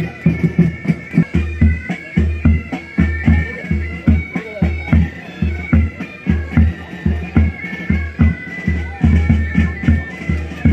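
Military pipe band playing a march: bagpipes carrying the melody over their steady drones, with bass drum beating about twice a second and snare drum strokes between the beats.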